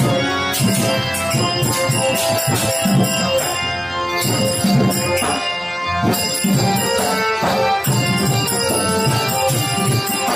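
Live traditional music for a Dashavatar dance: steady drumming with bright jingling percussion over held melodic notes.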